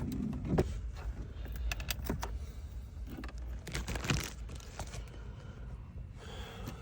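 A car key and its decorated keychain clinking and rattling as they are handled, with scattered small clicks and a few sharper knocks, over a low steady rumble.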